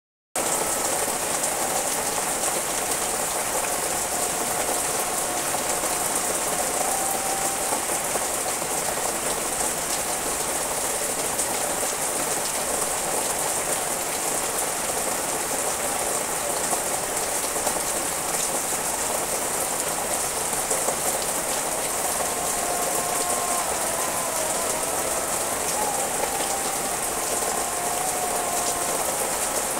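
Steady rain falling on the leaves of garden trees and shrubs, an even hiss that starts abruptly about half a second in.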